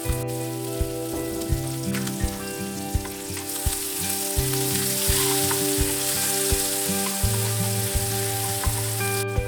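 Hot oil sizzling in a pan as food fries; the sizzle cuts off suddenly near the end. Background music with a steady beat plays throughout.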